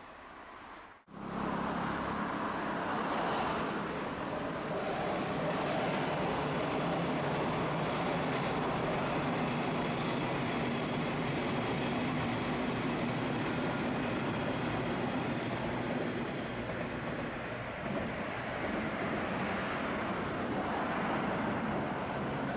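Train running by, giving a steady rumble and rolling noise that starts abruptly about a second in and holds at an even level.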